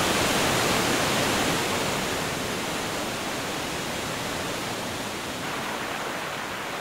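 Heavy water rushing steadily: a downpour over water, then floodwater pouring from the Bhadra Dam's open spillway gates. The rush is a little louder for the first two seconds and then holds level.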